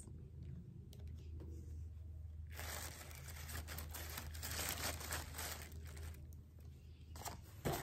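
Soft rustling and crinkling, heaviest from about two and a half to six seconds in, as a plastic-fronted eyelash package is pushed down into a woven basket among shredded paper filler and other packaged makeup.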